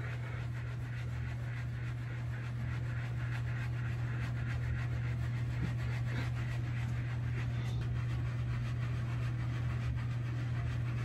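Steady low hum with faint, repeated scratchy rubbing as a curl sponge is pressed and worked over short 4c hair.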